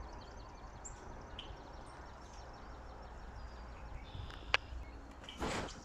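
Outdoor ambience: faint chirping of small songbirds over a steady low rumble, with one sharp click about four and a half seconds in and a brief rush of noise near the end.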